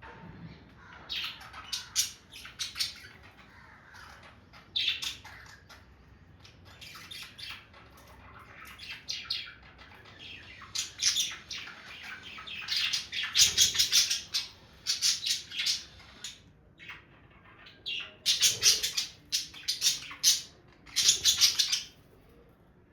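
Pet budgerigars chattering and squawking in short, sharp bursts of calls, coming in clusters with brief pauses between them and loudest in the second half.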